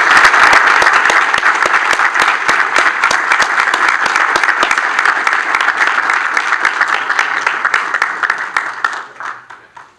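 Audience applauding: dense clapping from many hands, loudest at first, thinning out and dying away near the end.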